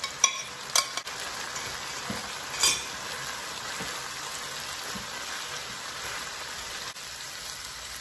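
Chicken, peas and rice sizzling steadily in a hot non-stick frying pan as the rice is tipped in and stirred through. A few sharp clinks come in the first second, and another ringing clink a little under three seconds in.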